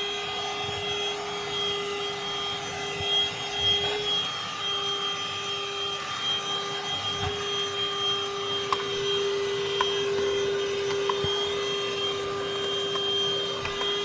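The handheld unit of a Grundig VCH 9929 L cordless 18-volt cyclonic vacuum runs steadily with a high motor whine, with a few faint ticks in the middle.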